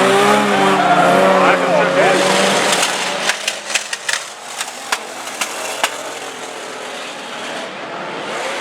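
Banger racing cars' engines revving and wavering in pitch over crowd voices for the first few seconds. Then the engine noise drops and a run of sharp knocks and clatters follows, fading to a steady background rumble.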